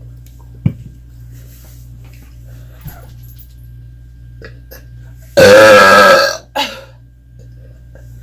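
A woman's loud burp, about a second long with a wavering pitch, a little over five seconds in, followed at once by a short second burst. Before it only faint room tone and a small click.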